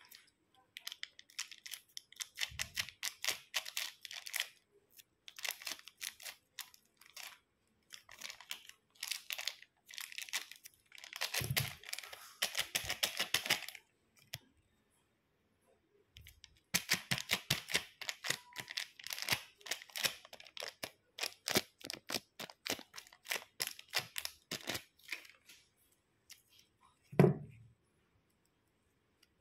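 Sticky crackling and tearing sounds from a homemade slime mixture being worked by hand, in two long bouts of fast wet clicks with a short pause between them. A single thump near the end is the loudest sound.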